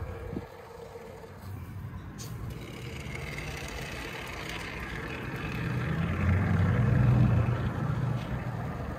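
Aerosol can of Great Stuff expanding foam spraying through its straw with a hiss, while the low rumble of a passing vehicle swells and fades, loudest about seven seconds in.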